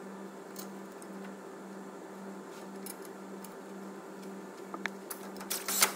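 Faint clicks and clinks of a steel brake caliper carrier being fitted over a new front brake disc by hand, with a few sharper metallic clinks near the end, over a steady low hum.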